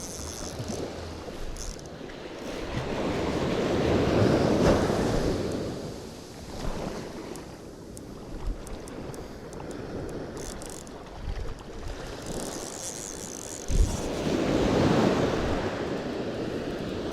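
Surf washing up on a sand beach, with waves swelling in twice, about four seconds in and again near the end, and wind buffeting the microphone.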